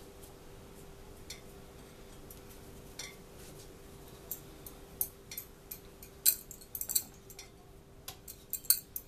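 Wooden rolling pin rolling out a small ball of dough on a round metal board, with irregular sharp clicks and knocks as the pin rattles against the board. The clicks start about three seconds in and come thicker and louder in the second half. A steady faint hum lies underneath.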